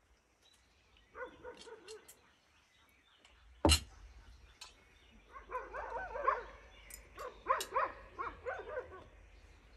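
A dog yipping and barking in short high-pitched bursts: a few about a second in, then a busier run through the second half. A single sharp knock about a third of the way in is the loudest sound.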